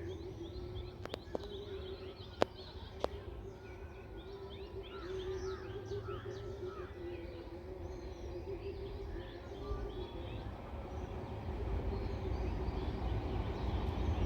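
Many small birds chirping, over a steady low hum, with three sharp clicks in the first few seconds. A low rumble grows louder near the end.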